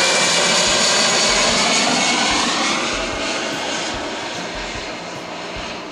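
Jet airliner passing low overhead: a loud jet engine roar that fades steadily from about halfway through as the plane flies away, its whine sliding down in pitch.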